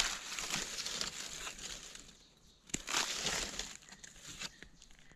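Dry leaf litter rustling and crackling under a gloved hand as a mushroom is dug out and lifted. Two bouts: a rustle lasting about two seconds, then after a brief pause a shorter burst about a second long, followed by faint scattered ticks.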